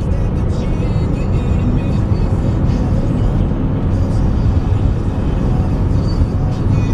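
Music playing on a car radio, heard inside a moving car's cabin over steady low road and engine rumble.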